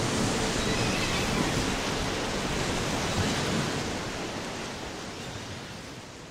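The closing wash of the song's recording: a steady rushing noise that spans low to high pitches, with a held note that drops out in the first second. It fades slowly over the last few seconds.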